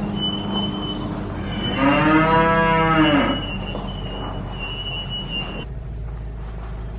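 A cow mooing once, about two seconds in: a single call of about a second and a half that rises and then falls in pitch. A steady background hum runs underneath and drops off near the end.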